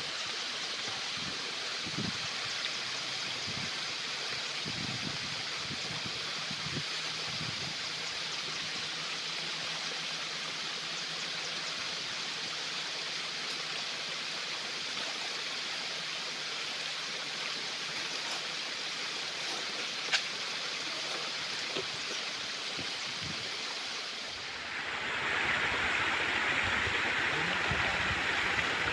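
Water pouring steadily from a pipe into a metal washing tray of groundnut kernels and running off through a muddy channel, an even rush that grows louder near the end.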